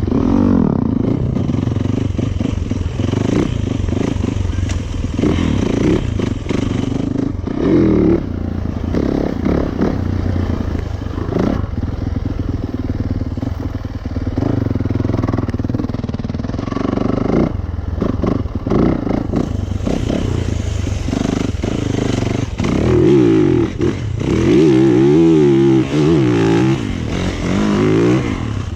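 A Yamaha YZ450FX's single-cylinder four-stroke engine under way off-road, its pitch rising and falling with the throttle and gear changes. Near the end it makes a run of quick rises and falls.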